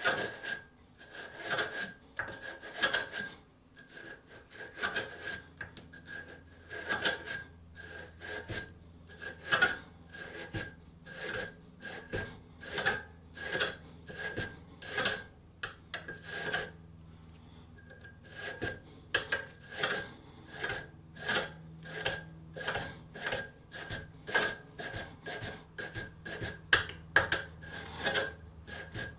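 Brass wire bore brush scrubbing in and out of the chambers of an old revolver cylinder held in a steel vise: repeated short scraping strokes, about two a second, with a brief pause a little past halfway. The brushing is clearing rust out of the chambers.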